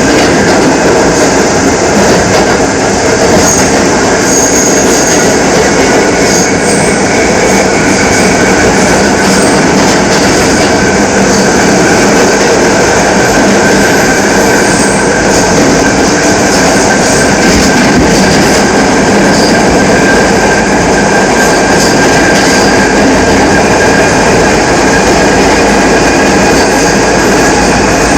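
R68 subway car running steadily at speed: a loud, constant rumble of wheels on rail with a steady high-pitched howl over it.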